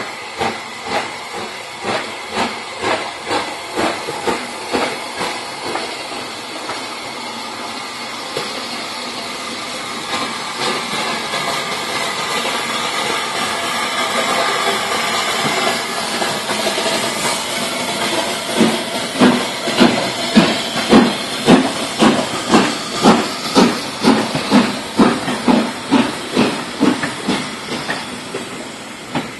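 Southern Railway S15 class 4-6-0 steam locomotive No. 847 working past with a train: regular exhaust chuffs, then a steady hiss of steam as the engine draws level, then loud, evenly spaced chuffs again that fade near the end as the coaches go by.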